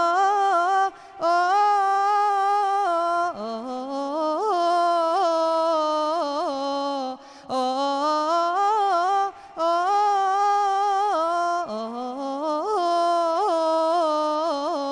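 A woman singing Islamic devotional inshad solo into a microphone, with no instruments. She sings long, drawn-out melodic phrases with quick ornamental turns and trills, and takes brief breaths between them.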